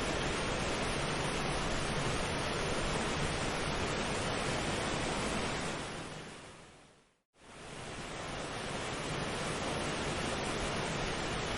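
Steady rushing wash of ocean surf ambience. It fades out to silence just past seven seconds in, then fades straight back up.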